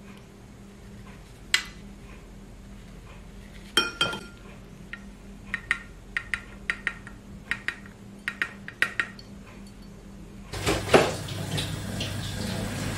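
Metal clinks and taps as a tuna can is pressed down into a stainless-steel mesh sieve to squeeze the oil out of the tuna. One sharper clink with a short ring comes about four seconds in, then a run of quick light clinks. Near the end a steady hiss comes in.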